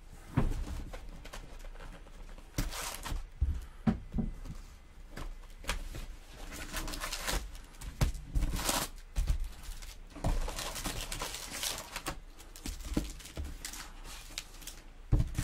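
Trading-card packs and their cardboard hobby box being handled and opened by hand: irregular rustling and crinkling with scattered light knocks.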